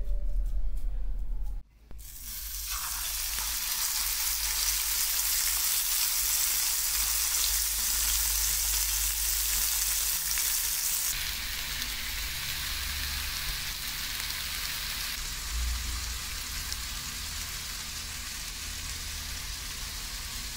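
Ground-beef hamburger patties sizzling in a hot frying pan, a steady frying hiss that starts about two seconds in and eases a little about halfway through.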